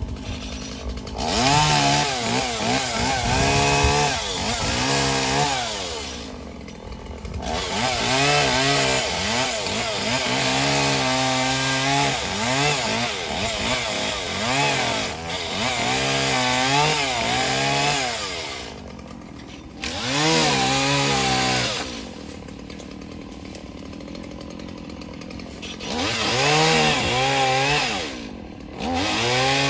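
Chainsaw cutting wood, its engine repeatedly revving up and sagging in pitch under load. It drops back to a quieter idle three or four times between cuts.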